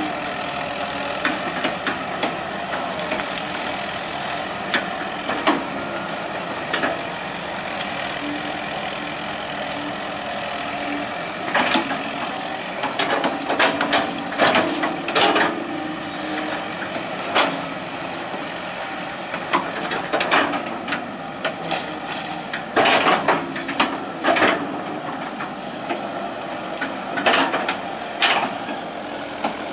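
Hitachi EX120 excavator's diesel engine running steadily as the machine works. From about twelve seconds in there are clusters of sharp clanks and knocks.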